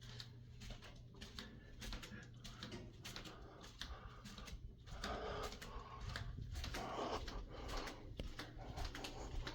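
Faint, irregular scratching and clicking from inside the wall or ceiling, like small claws and gnawing, which the resident suspects is rats, over a steady low hum.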